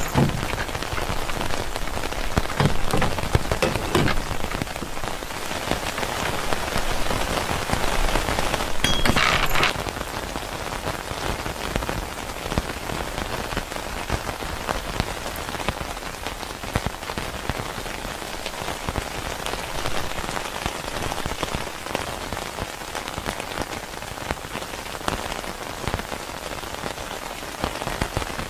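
Steady rain falling, with many separate drop hits close by; heavier for the first ten seconds or so, then a little lighter.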